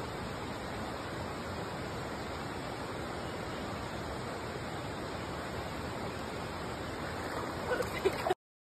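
Steady rushing noise of water, with a few brief louder knocks near the end. The sound cuts off abruptly about eight seconds in.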